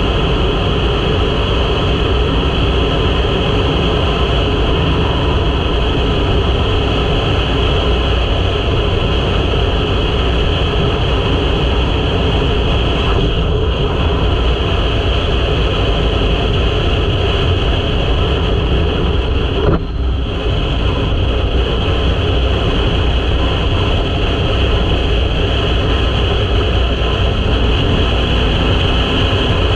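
Wind rushing over the camera microphone mixed with the KTM 500 EXC-F's single-cylinder four-stroke engine running at road speed, a steady loud noise with no gaps. A short click and brief dip in the noise come about twenty seconds in.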